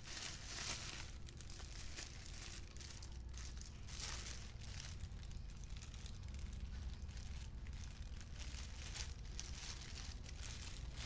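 Thin plastic bag crinkling and rustling in irregular bursts as hands handle it.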